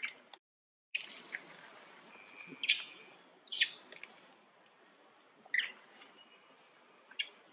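Forest ambience: a steady high-pitched insect drone, with five or six short, sharp chirps or calls scattered through and a brief held whistle near the middle. The sound drops out completely for about half a second near the start.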